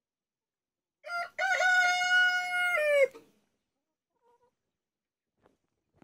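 Rooster crowing once, starting about a second in: a short opening note, then one long held note that falls in pitch as it ends, about two seconds in all.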